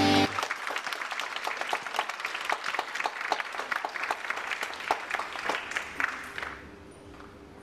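Music cuts off abruptly at the start, then a small audience applauds with scattered hand claps that fade away near the end.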